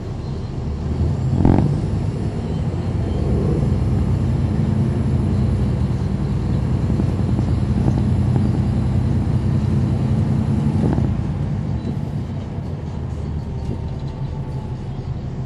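Caterpillar C13 inline-six diesel of a NABI 40-foot transit bus heard from the rear seats inside the bus, pulling under steady load. There is a knock about a second and a half in, and the engine eases off after a second knock about eleven seconds in.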